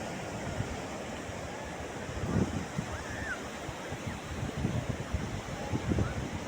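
Sea surf washing on a beach, a steady rush of waves with wind on the microphone. Faint voices are heard in the distance.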